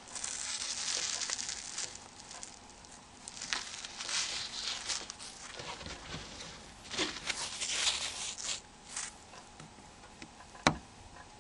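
Hands and small tools handling a Nokia N95's plastic housing parts: scraping and rustling in a few short stretches, then a sharp click near the end.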